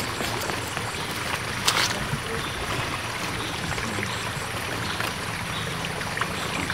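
Steady outdoor background noise, with a few faint scrapes and a knock as a large knife digs into the soil at the base of a planted dragon fruit cutting.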